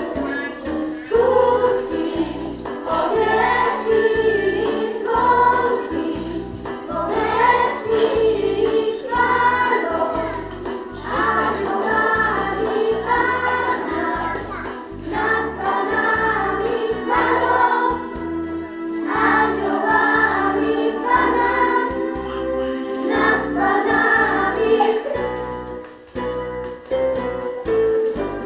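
A group of voices singing a Christmas carol with instrumental backing, in a steady beat.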